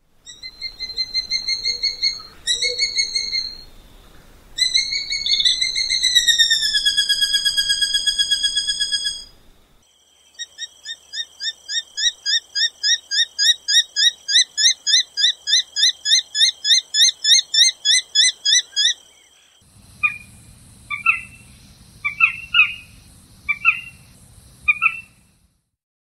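Pied goshawk calling. First comes a fast run of high, piping notes that slide down in pitch, then a long rapid series of repeated notes, about three or four a second. Near the end there are half a dozen short separate calls over a low background noise.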